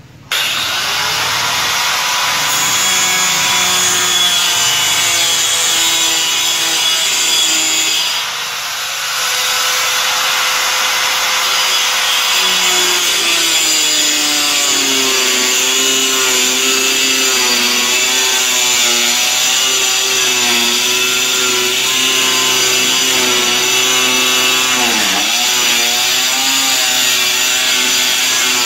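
Handheld electric power cutter running and cutting through a fibre cement (GRC) board. It starts abruptly and runs steadily, its pitch wavering as the blade bites into the board. It eases off briefly about a third of the way in and sags in pitch near the end.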